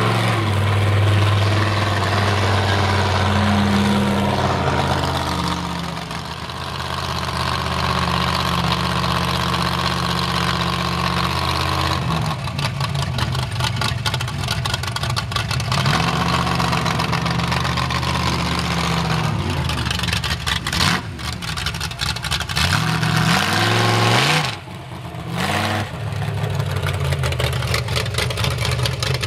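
Chevy square-body mud truck's V8 running through open headers, revved up and falling back several times, with a rapid, choppy exhaust beat between the revs.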